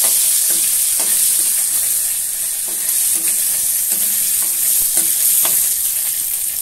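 Dry red chillies, bay leaves and panch phoron sizzling in hot mustard oil in a steel kadai, being fried dark for a tempering. A steel ladle stirs them, scraping and clinking against the pan several times.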